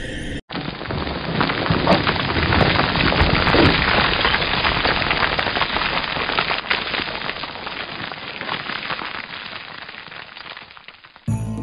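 Crumbling, crackling debris sound effect: a dense rush of grainy crackle that starts abruptly about half a second in, is strongest within the first few seconds, and slowly fades away.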